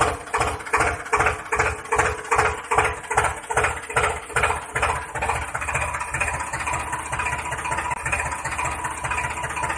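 Tractor engine chugging at about three beats a second, then running steadier and faster over the second half.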